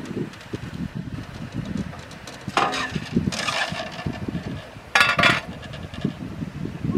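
Small Hunslet 0-4-0 saddle-tank steam locomotive standing with steam up while worked on the footplate: irregular metallic knocks and clatter, with two short, loud bursts of hissing, about two and a half and five seconds in.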